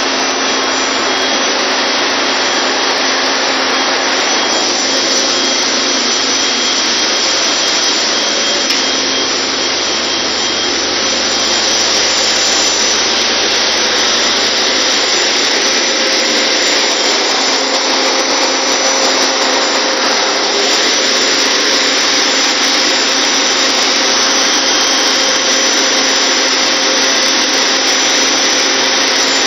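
A chemical tanker's engine-room machinery running: a loud, steady din of engines and pumps, with a few constant hums through it.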